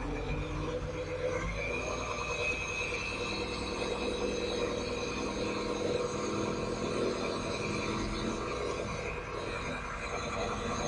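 Kato SR-250 25-tonne rough-terrain crane's diesel engine running steadily, with a high whine joining over it about a second and a half in.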